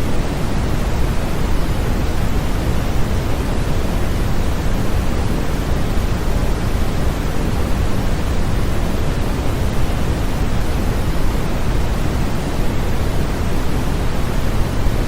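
Steady, unchanging electronically generated white noise of the baby sleep-aid kind: an even hiss with no breaks, weighted toward the low end like pink noise.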